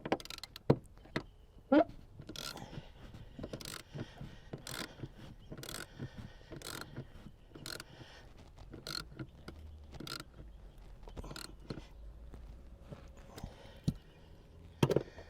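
Hand ratchet wrench clicking in steady strokes, about one a second, while tightening a car seat's mounting bolts, with a few louder knocks of metal on metal.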